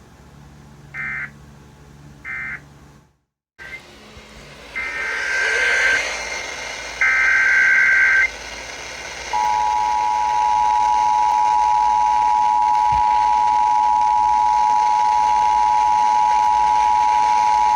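Emergency Alert System broadcast tones: short buzzy digital data bursts, the end-of-message code of one alert and the header code of the next, followed by the EAS two-tone attention signal held steady for about eight seconds.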